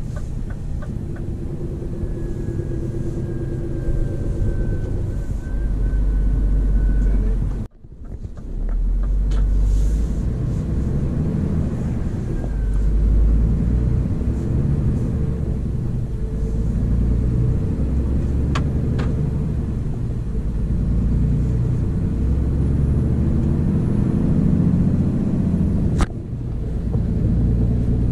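Scania R500 truck's 13-litre straight-six diesel pulling under a load of about 25 tonnes, heard from inside the cab as the truck accelerates: a steady low rumble. The sound cuts out briefly about eight seconds in, and there is a sharp click near the end.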